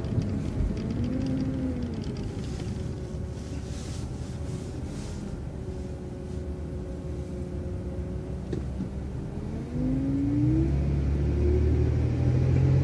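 City transit bus under way: a steady engine drone with a whine that rises and falls as the speed changes. About ten seconds in it grows louder as the engine pulls harder and the whine climbs, as when the bus accelerates.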